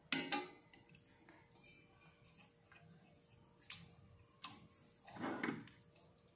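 A few faint, sharp clicks and taps, with a softer, longer knock about five seconds in, over a faint steady hum.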